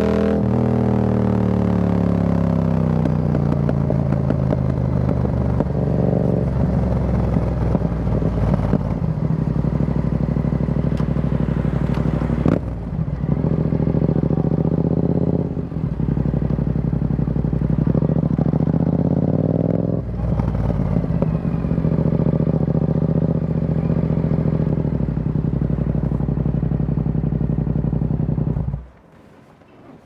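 2023 Yamaha XSR700's 689 cc parallel-twin engine through an Akrapovic carbon full exhaust system with the dB killer removed, at low revs as the bike slows. Its pitch falls over the first few seconds, then it runs steadily with a few short dips. It cuts off suddenly near the end as the engine is switched off.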